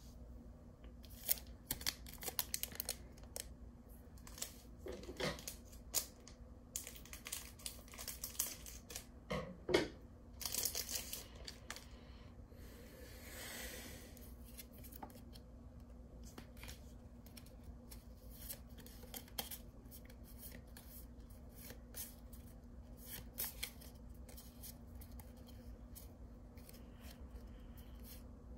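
Pokémon trading cards handled by hand: a dense run of sharp rustles, crinkles and clicks in the first dozen seconds, a longer scraping slide just after, then lighter flicks as the cards are turned over one by one.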